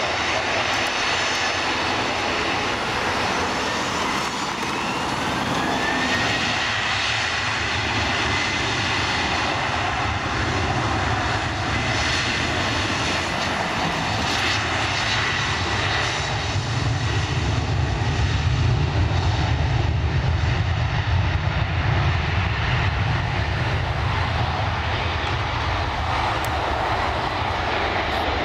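Airliner engines running continuously, a high whine rising and then holding steady, with a low rumble that grows louder past the middle.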